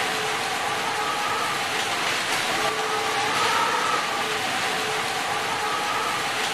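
A miniature DIY chaff cutter driven by a small electric motor, running steadily with a rattling hiss. A whine at several pitches swells and fades every couple of seconds.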